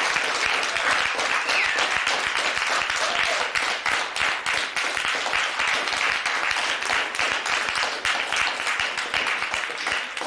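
Audience applauding at the curtain call: dense, steady clapping.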